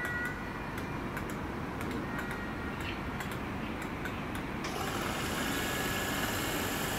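Faint scattered clicking and ticking. About two-thirds of the way in, a steady hiss with high whining tones comes in suddenly and builds a little: a Merseyrail third-rail electric train drawing near.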